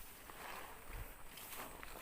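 Soft footsteps with rustling of grass or brush, several steps about half a second apart with a low thump about a second in.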